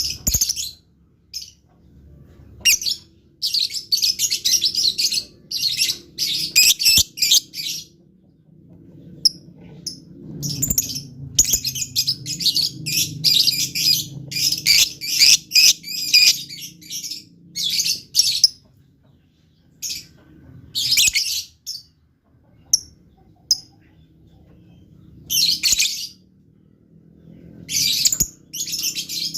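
Lovebird chattering in full song (what Indonesian bird-keepers call gacor): bursts of rapid, high-pitched chirps lasting a second or two each, broken by short pauses, with a longer unbroken run in the middle.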